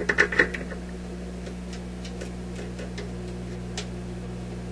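Mains hum from a stereo amplifier playing a record player's ungrounded phono connection, a steady low hum with overtones, which the owner puts down to the missing ground wire. A burst of sharp crackling clicks in the first half second as an RCA plug is handled, then faint scattered ticks.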